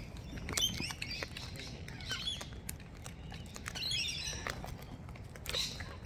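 Wild birds at a seed bucket giving several short, soft chirps, with scattered light clicks and taps among them.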